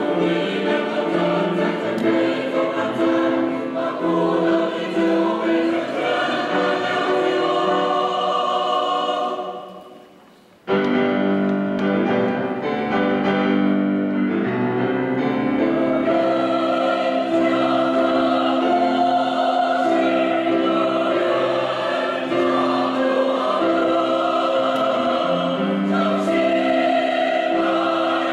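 Mixed choir of women's and men's voices singing in full harmony. About nine seconds in the singing dies away to a brief near-silent pause, then the whole choir comes back in suddenly and keeps singing.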